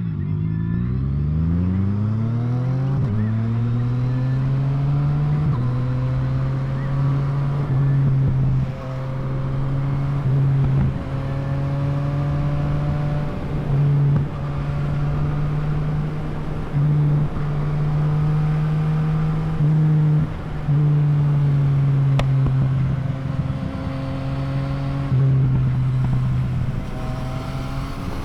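Yamaha MT-09 inline-three engine accelerating, its pitch rising over the first few seconds, then running at steady road speed with short, louder throttle surges every few seconds, over a rush of wind.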